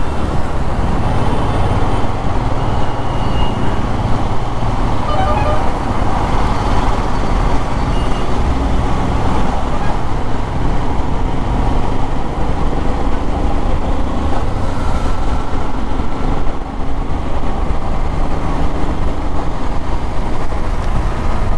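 Royal Enfield Himalayan BS6's 411 cc single-cylinder engine running at road speed, mixed with steady wind rush and surrounding traffic, with a couple of faint horn toots in the first half.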